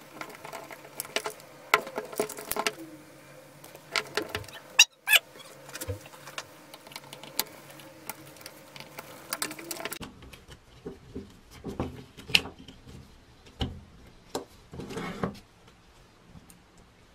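Hands in nitrile gloves handling and prying apart an old corded drill's trigger switch and wiring: scattered small metal clicks, taps and scratching, with the rustle of the gloves. About ten seconds in the sound changes abruptly and the handling becomes duller and lower.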